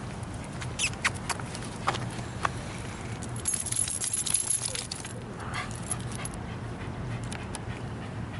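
A small long-haired dog shaking its head, a rattling, flapping rush of ears and collar for about a second and a half near the middle, with a few sharp clicks before it.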